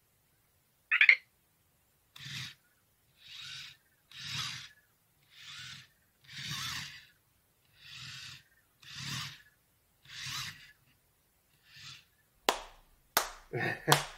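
Anki Vector robot's tread motors whirring in nine short bursts about a second apart, each about half a second long, as it drives its path in short steps. There is a short high chirp about a second in, and a few sharp clicks near the end.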